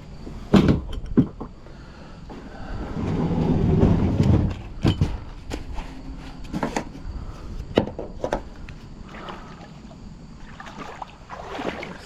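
Scattered sharp knocks of scrap metal against a kayak, with a swell of splashing water about three to four seconds in.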